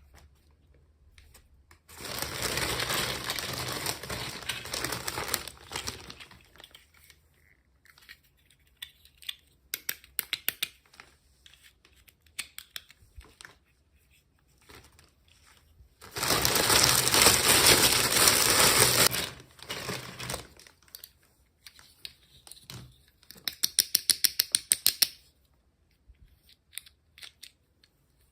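Toy packaging being crinkled and torn open by hand in two long stretches, with small handling clicks between, and a quick run of sharp clicks near the end.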